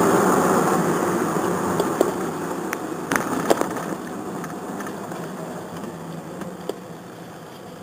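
Engine and tyre noise inside a moving car's cabin, fading steadily as the car slows down, with a few light clicks and knocks in the first half.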